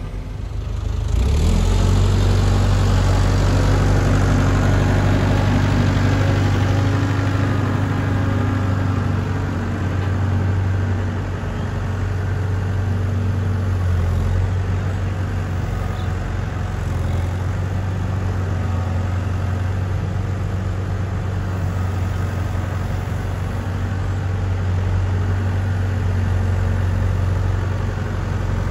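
A farm tractor's engine idles steadily close by. It comes in loud about a second in.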